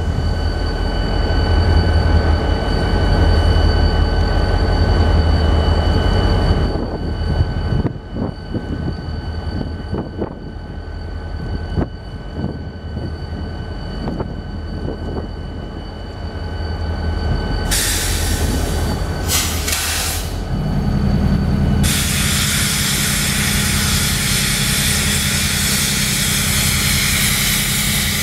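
BNSF diesel-electric locomotives rolling slowly past, engines rumbling with a steady high whine over them, then lighter running with scattered clanks and clicks from the wheels and running gear. About eighteen seconds in come short bursts of hissing, and from about twenty-two seconds a steady loud hiss runs on over a deeper engine tone.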